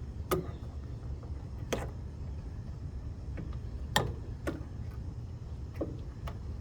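A handful of separate sharp clicks and knocks, about five, spaced a second or so apart, over a steady low rumble.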